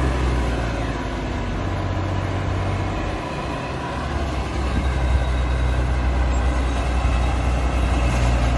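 Combine harvester's diesel engine running steadily, its low hum easing briefly about three seconds in and then coming back.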